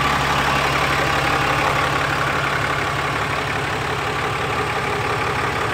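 2018 Ram 3500 pickup's engine idling steadily and smoothly.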